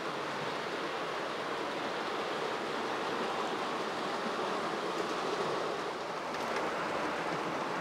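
OO gauge Hornby GWR King class model locomotive and coaches running along the layout track: a steady rolling whir of wheels on the rails.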